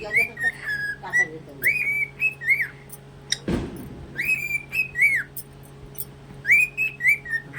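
Cockatiel whistling its song: four bursts of rising and falling whistled notes a second or two apart. A single thud comes about three and a half seconds in.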